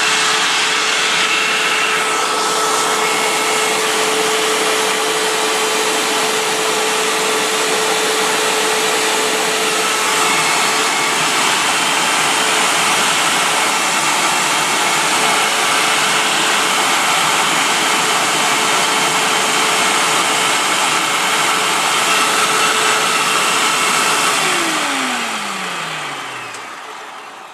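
Hoover WindTunnel upright vacuum cleaner running steadily with a loud whooshing hum, then switched off near the end, its motor winding down in a falling tone.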